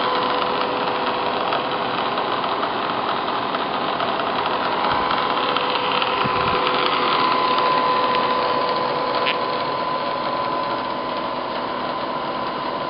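Bridgeport Series 1 EZ Trak CNC milling machine running: a steady mechanical hum with an even two-pitch motor whine.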